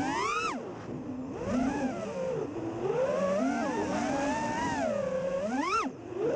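FPV freestyle quadcopter's brushless motors and propellers whining, the pitch swooping up and down again and again as the throttle is punched and cut. A steep climb comes in the first half-second, and another sharp climb and drop comes near the end.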